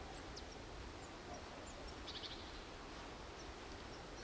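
Faint outdoor background noise with a few brief, faint bird chirps and a short high trill about two seconds in.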